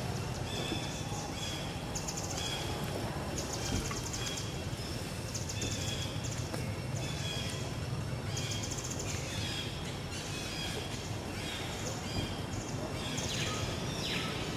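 Birds chirping again and again, short high calls about once a second, over a steady low background rumble.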